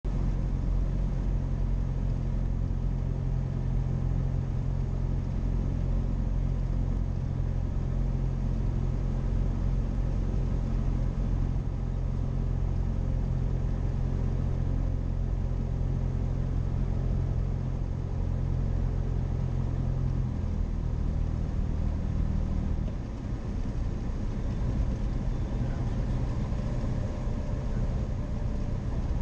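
Single-engine Cessna's piston engine and propeller droning steadily, heard inside the cockpit. About two-thirds of the way through, the engine note changes and drops as power is pulled back on the landing approach.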